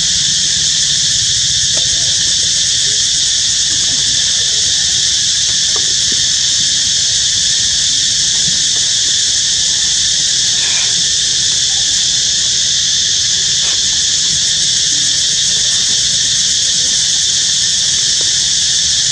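A loud, steady, high-pitched insect chorus buzzing without a break.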